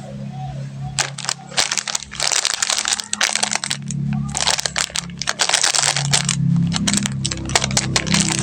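Candy wrappers being crinkled and torn open by hand: clusters of sharp crackling that start about a second in and come in bursts.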